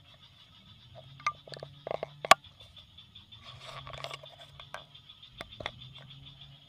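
Scattered sharp knocks and slaps, the loudest a little over two seconds in, with rustling in between, from handling a freshly caught tilapia and fishing line on the ground. A steady high-pitched hum runs underneath.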